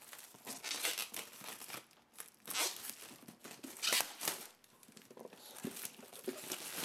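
Plastic shrink-wrap being torn and crumpled off a tablet's cardboard retail box: irregular crinkling and tearing rustles in several bursts, the strongest about two and a half and four seconds in.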